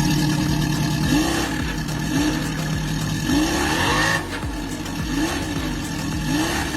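Engine of a large remote-control car running, revved in short repeated blips about once a second, each a quick rise in pitch over a steady idle.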